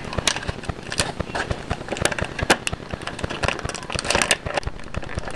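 Action-figure blister package being handled and opened: irregular crackling of plastic and cardboard with sharp snapping clicks.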